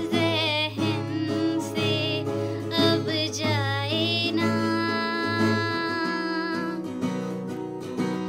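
A woman singing a Hindi song to an acoustic guitar strummed as accompaniment.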